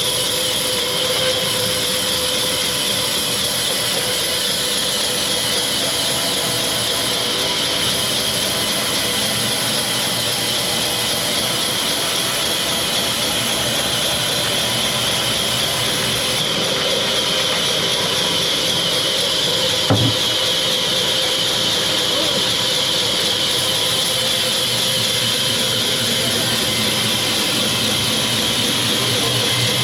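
Sawmill machinery running steadily, a dense mechanical noise with a constant high whine, and a single knock about two-thirds of the way through.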